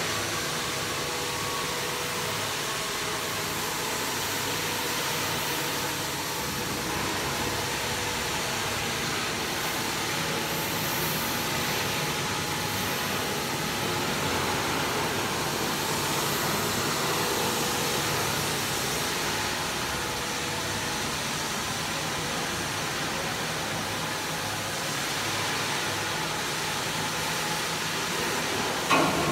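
Steady rushing machine noise that holds one even level throughout, with no strokes or changes in pitch.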